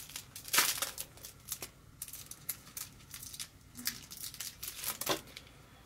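Plastic wrapper of a microfiber cleaning cloth crinkling and tearing as it is unwrapped by hand, in short irregular crackles, loudest about half a second in and again near the end.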